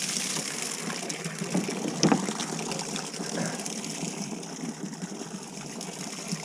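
Water running in a steady gush, with a single knock about two seconds in.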